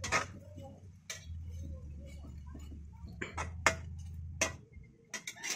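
Metal spatula clicking and scraping against a frying pan while fern shoots are stir-fried: a handful of sharp, irregular clicks.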